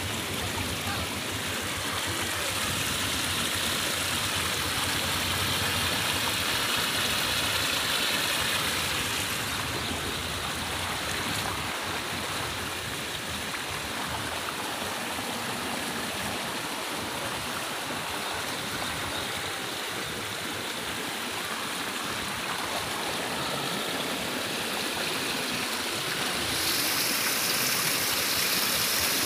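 Muddy floodwater rushing fast along a street, a steady loud sound of flowing water that gets a little louder and brighter near the end.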